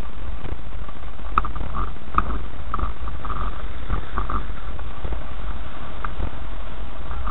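In-cabin rumble of a car driving slowly over a rough dirt track. Scattered knocks and squeaky rattles come as it goes over bumps, the sharpest two about a second and two seconds in.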